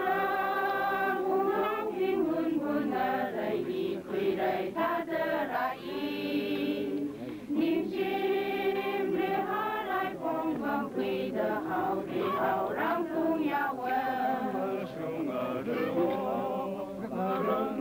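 A choir of women singing a hymn together, holding long notes in phrases with short breaks between them.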